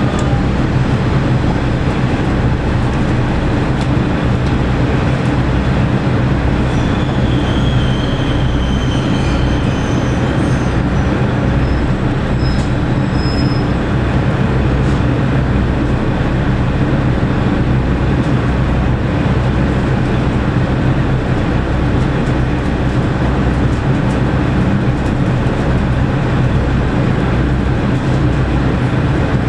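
Diesel engine of a KiHa 47 railcar idling steadily while the car stands still, heard from inside the car. A faint high whine rises over it briefly a few seconds in.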